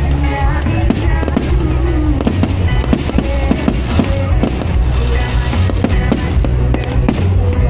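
Aerial fireworks bursting in quick succession, a dense run of bangs and crackles over a low rumble, with music playing underneath.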